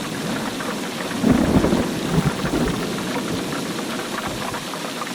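Thunderstorm: a swell of rolling thunder about a second in, over steady rain.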